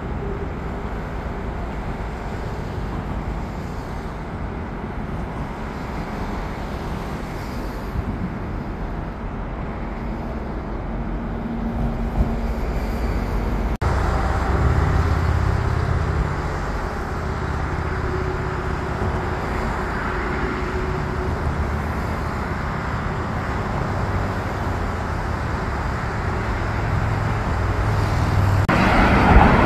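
Steady road-traffic noise from cars and buses passing on a busy city bridge. There is a sudden break about 14 seconds in, after which the noise is a little louder, and it swells again near the end.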